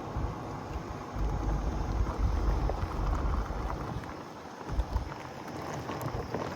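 Wind buffeting the microphone outdoors: irregular low rumbling gusts over a steady background hiss.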